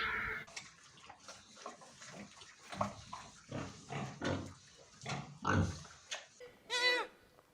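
A farm animal giving a series of short, low grunts, then one short, wavering, bleat-like call near the end.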